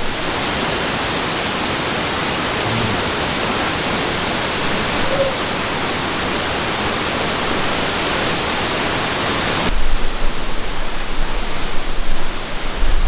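Steady rushing of a stream, with a high insect drone on top. About ten seconds in it cuts off abruptly to quieter outdoor ambience, where the insect drone goes on over low, uneven rumbling.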